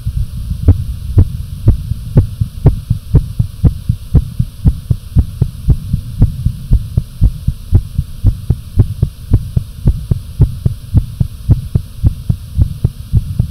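Fast human heartbeat: a steady run of rapid thumps, about two to three a second, over a steady low rumble.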